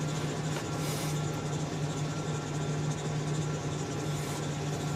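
Pickup truck idling, heard from inside the cab as a steady low hum.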